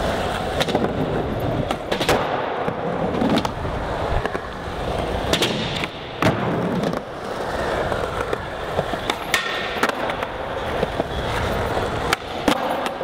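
Skateboard wheels rolling on a smooth concrete floor, with sharp clacks of the board popping and landing every few seconds.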